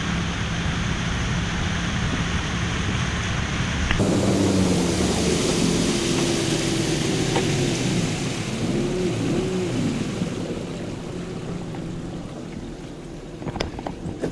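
Small river boat's motor running under a steady rush of wind and water noise, its note dipping and rising, then fading away as the boat slows and coasts in; a few sharp knocks near the end.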